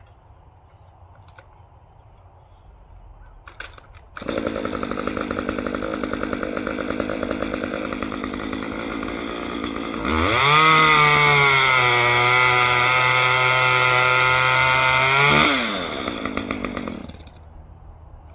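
Two-stroke chainsaw starts up about four seconds in and runs at idle. About ten seconds in it revs to full throttle for some five seconds, its pitch sagging slightly as it cuts through a branch. It then drops back and shuts off near the end, after a few faint clicks at the start.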